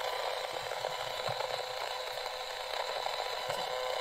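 Portable radio switched on and giving a steady hiss of static with a buzzing whine in it, interference the radio picks up from the oscilloscope wired to it.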